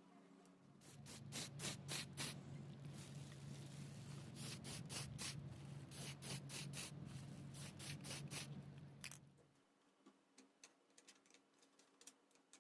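A small electric motor hums steadily for about nine seconds amid rapid clicking and scraping, then stops abruptly; faint scattered ticks follow.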